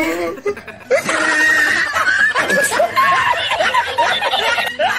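A man laughing hard in a long run of high-pitched laughs, starting about a second in: the 'Risitas' laughing-man meme clip.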